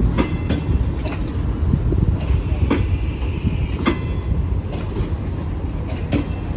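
Passenger train coaches rolling along the track: a steady low rumble with irregular sharp clacks of the wheels over rail joints.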